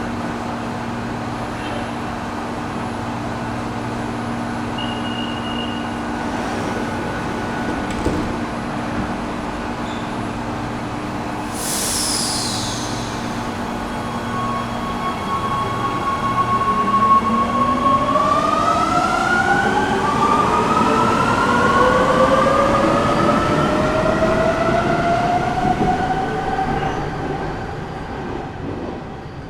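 Electric metro train standing at the platform with a steady electrical hum, a short hiss of air about twelve seconds in, then pulling away as its traction motors whine, rising steadily in pitch and fading near the end.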